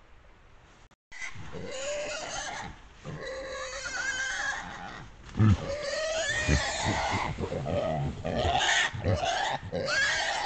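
A young wild boar caught in a leg snare squeals and screams over and over, its cries gliding up and down in pitch, with low thuds among them. The cries start suddenly about a second in, after faint hiss.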